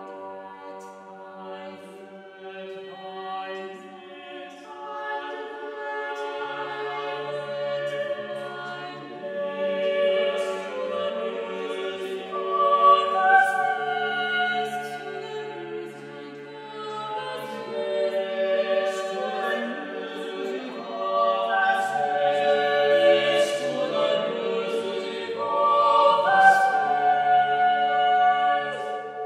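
Small mixed-voice a cappella choir of six singers holding sustained, overlapping chords, swelling from soft at the start to louder climaxes in the middle and near the end.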